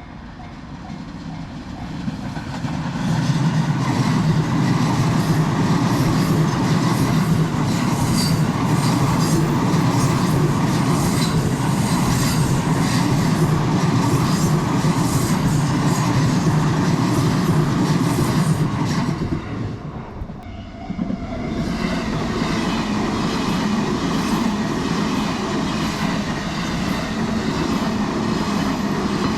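Train on the Sobu Main Line passing close by, with wheels clacking over the rail joints. The sound builds over the first few seconds, holds steady, dips briefly about two-thirds of the way through, then goes on as loud.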